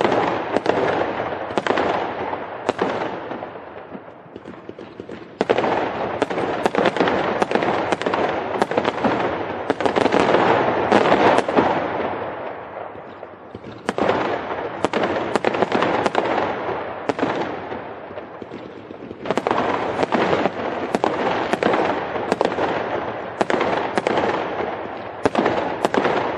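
Fireworks going off in rapid succession: many sharp bangs over a dense, continuous crackle. The volley comes in waves, surging about five seconds in, again around fourteen seconds and again around nineteen seconds, easing off in between.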